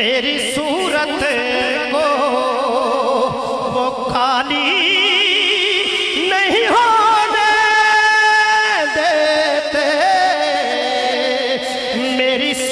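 A man singing a naat (devotional praise poem) into a microphone. His voice winds through ornamented turns, then holds one long steady note from about six and a half to nine seconds in.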